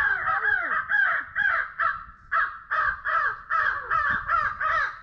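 Crows cawing in a rapid, continuous string of harsh caws, about three a second, with a brief pause about two seconds in.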